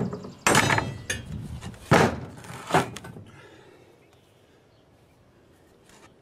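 Lengths of steel angle clanking against each other and the plywood worktable as they are turned around and laid down: three sharp clanks in the first three seconds.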